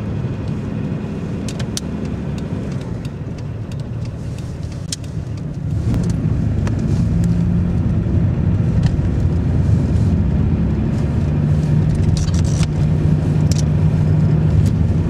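Car engine and tyre noise heard from inside the cabin while driving. It gets louder about six seconds in, with a few light clicks and rattles along the way.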